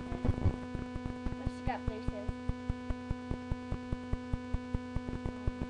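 Steady electrical hum with a fast, even clicking of about five clicks a second, the kind of interference a cheap webcam microphone picks up. A brief murmured voice sound comes about one and a half seconds in.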